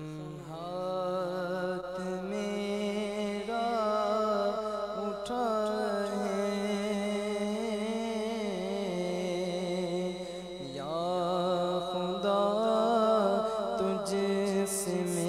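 Male voice chanting an Urdu munajat (devotional supplication) in long, wavering held notes, with a brief dip about two thirds of the way through.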